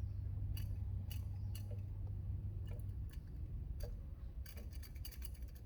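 Light clicks and taps of small metal carburetor parts (float bowl, float) being handled, coming in a quick cluster near the end, over a low hum that fades about three seconds in.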